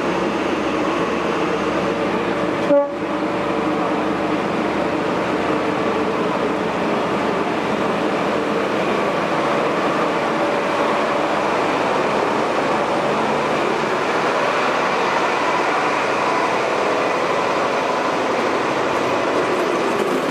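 Diesel train passing slowly and close by, its engines and wheels making a steady running noise throughout. A short horn toot comes about three seconds in.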